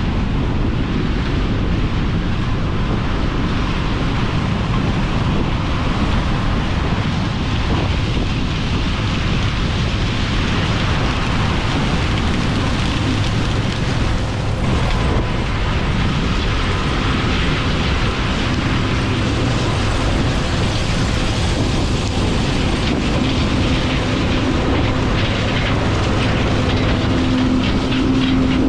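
Heavy harvest machinery running steadily with a dense low rumble. A steady hum comes in about halfway through and grows stronger near the end.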